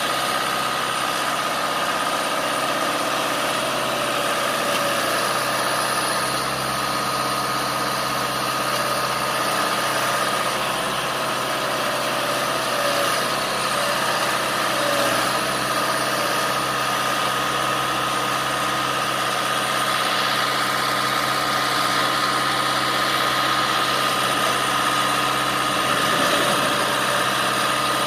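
2009 Jarraff 75 ft four-wheel-drive tree trimmer's engine idling steadily, with a constant high whine over it.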